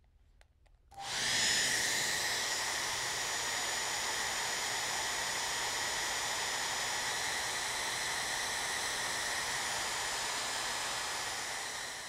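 Hair dryer switched on about a second in, then running steadily: a rush of air with a high, even whine from the motor and fan. It fades out near the end.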